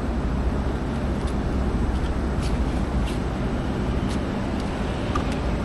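Steady rumble of road vehicles and city traffic, with a few faint clicks.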